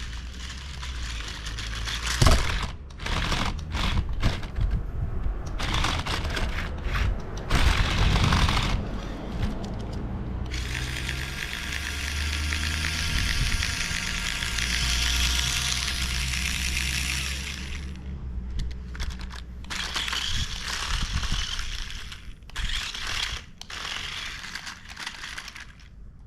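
A small RC crawler's electric motor and gearbox whirring in full-throttle spurts. Its tyres and chassis crunch and rattle over rough ground, and there is one longer steady run of about eight seconds near the middle. The car has no electronic speed controller, so the motor runs all-or-nothing.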